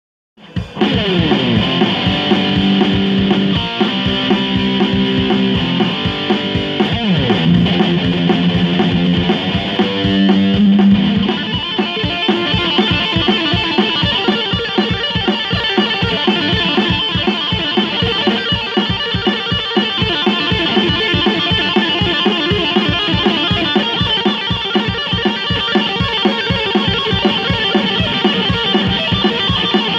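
Electric guitar, an Ibanez GIO GRG270 through a Marshall MG15CD amp. For the first eleven seconds or so it plays sustained notes with a few slides, then switches to fast two-handed tapped note runs that repeat evenly.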